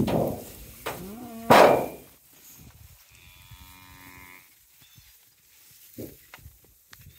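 Beef cattle at a hay ring feeder: a short rising moo about a second in, followed at once by a loud, short rush of noise, then a longer, fainter moo from about three to four and a half seconds.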